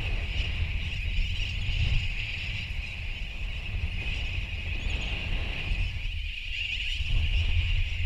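Massed calling of a large seabird colony, a steady unbroken din, with wind buffeting the microphone in low rumbles.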